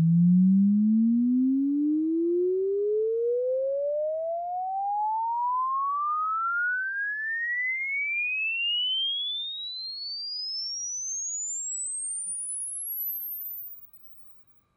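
Sine-sweep test tone played through a freshly re-foamed JBL Control 2P powered monitor speaker, a single pure tone rising steadily from a low hum to a very high whistle and cutting off suddenly near the end.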